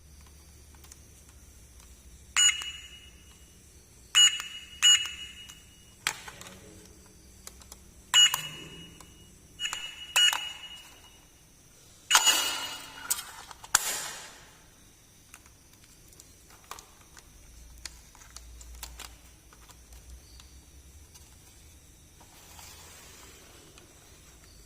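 Small toys being handled: a series of about eight sharp clicks and taps, several followed by a brief high ring, over the first half, then only faint handling.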